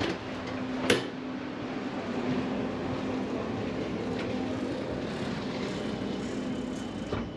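Steady interior hum of a stationary Siemens Velaro TR high-speed train, its onboard systems running, with a steady tone in it. A sharp click sounds at the start and another about a second in.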